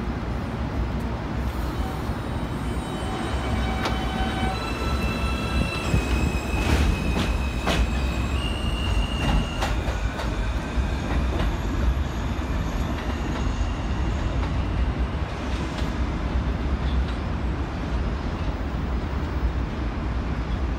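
New York City subway train pulling away from an elevated platform, with a steady low rumble. In the first half, high whining tones step up in pitch as it accelerates.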